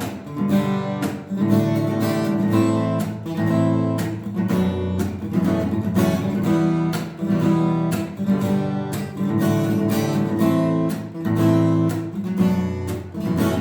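Acoustic guitar strummed with a pick, playing an intro on open-position chords in a steady run of quick strokes.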